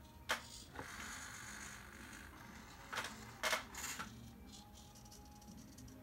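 Small hobby servo motors of a robot arm whirring in short spurts as the arm moves, with several sharp clicks, the loudest a pair about three and three and a half seconds in, and a fast fine ticking near the end.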